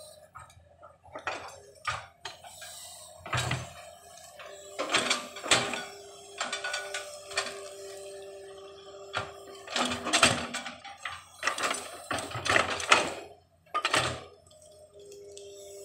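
Excavator at work reshaping terraces: irregular metallic clanks and knocks, with a steady whine held for several seconds in the middle and again near the end.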